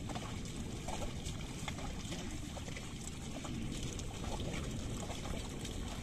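A pair of bullocks and their plough wading through a flooded paddy field: irregular splashes and squelches of hooves and plough in water and mud, over a steady low rumble.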